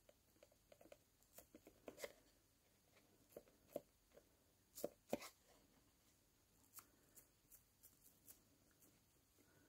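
Near silence with a few faint, scattered light taps and clicks: a small stamp pad being dabbed against a seahorse cut-out to wet it for clear embossing powder.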